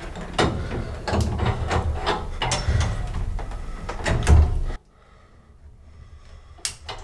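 Hands fitting brass pipe fittings, a nut and a fibre washer at a gas boiler's diverter valve: irregular clicks, knocks and scraping over a low rumble. A heavier bump comes about four seconds in, and the handling noise cuts off abruptly soon after.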